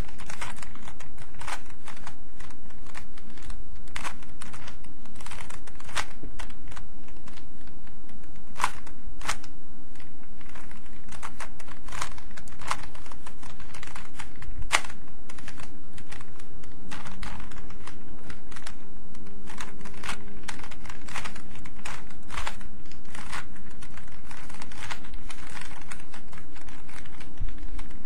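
Plastic Rubik's Cube being turned one-handed: irregular light clicks of the layers turning and snapping into place, one to a few a second, over steady background noise.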